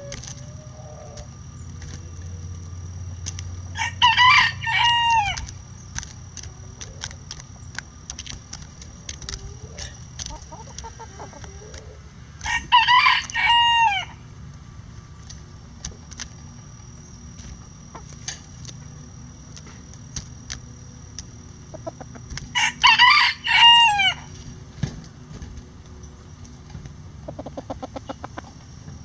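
Bantam roosters crowing three times, about nine seconds apart. Each crow is a short run of three or four notes that rise and then fall. Faint clicks sound between the crows.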